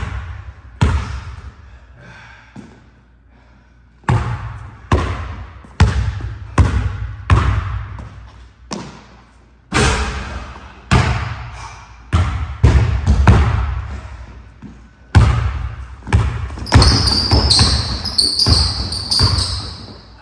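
A basketball dribbled on a hardwood gym floor, a sharp bounce about every 0.7 seconds that echoes in the room, with a pause of a couple of seconds early on. Near the end, high squeaks of sneakers on the hardwood over the bounces.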